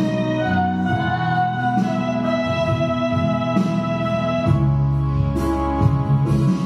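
Electronic arranger keyboard playing a slow tune, with a melody over sustained chords and a steady bass accompaniment.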